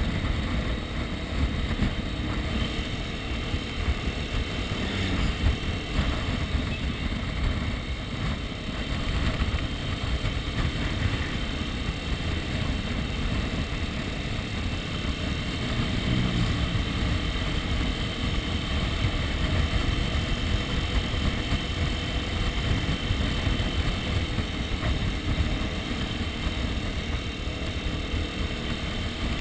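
Dirt bike engine running at a steady riding speed, with heavy wind buffeting on the microphone.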